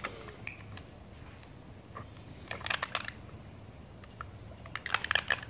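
A dog's teeth crunching an unopened aluminium soda can, giving two short bouts of rapid crackling clicks about two seconds apart.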